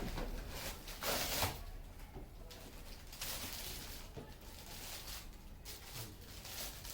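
Rustling and scraping of gift packaging being handled and opened, in irregular bursts, loudest about a second in.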